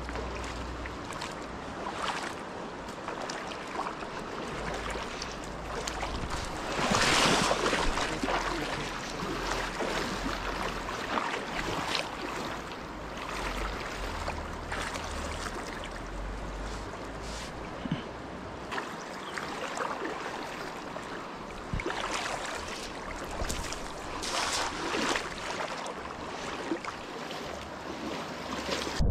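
Steady rush of river water with gusts of wind buffeting the microphone. There is a louder surge about seven seconds in.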